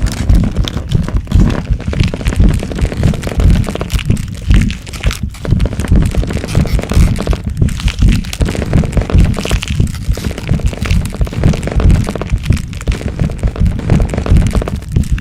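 Transformation growth sound effect: a rapid, continuous run of cracks and crunches over a deep rumble, with no pause.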